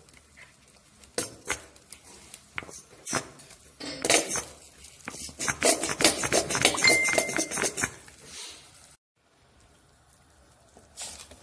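Clicks and clinks at a stainless-steel cooking pot as mustard is squeezed in from a plastic squeeze bottle: a few scattered taps, then a quick clatter of clicks for about four seconds in the middle.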